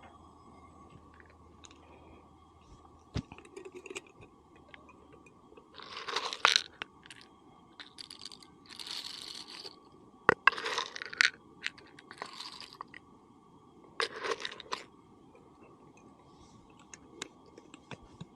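Several short crinkling, rustling bursts, each lasting half a second to a second and a half, among scattered light clicks and knocks.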